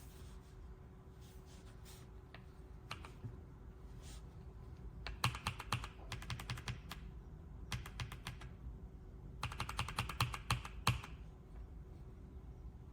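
Typing on the AULA F75 Pro mechanical keyboard with its pre-lubed Reaper switches: a few scattered keystrokes, then three quick bursts of rapid typing starting about five, eight and nine and a half seconds in.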